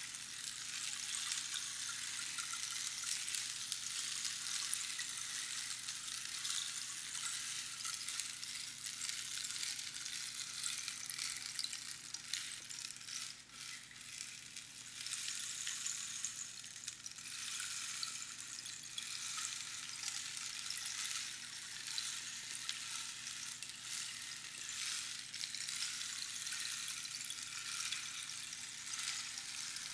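Rainstick being played: small pebbles trickling down through the pins inside the hollow tube, a steady patter of fine clicks like falling rain, with a brief lull about halfway through.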